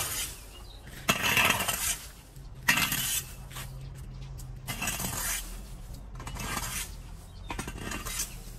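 Metal fan rake scraping dry leaves and twigs across a concrete pavement in repeated strokes, about one every one and a half seconds, with a metallic clatter from the tines.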